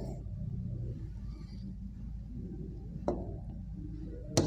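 Writing on a board over a steady low room hum, with two sharp taps of the writing tip, one about three seconds in and a louder one just before the end.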